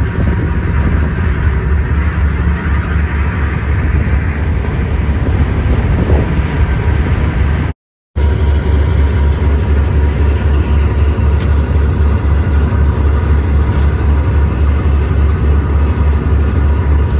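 Tugboat's diesel engines running steadily underway, a loud low drone with wind and wake-water noise over it. It breaks off for a moment about eight seconds in.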